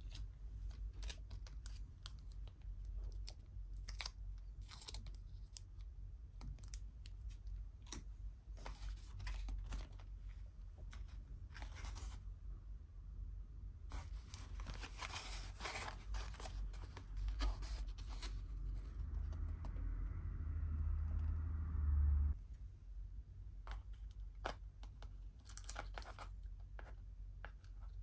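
Plastic packaging crinkling and tearing, with many scattered small clicks and taps. About three quarters of the way through, a low steady hum with some crackle runs for roughly three seconds and then stops suddenly.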